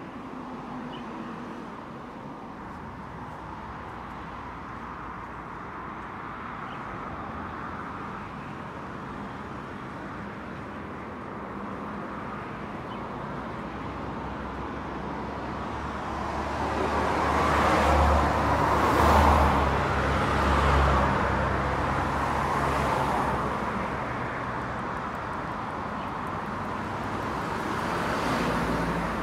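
Outdoor road traffic noise. Past the middle it swells for several seconds as a vehicle engine runs louder close by, then falls back to the steady background.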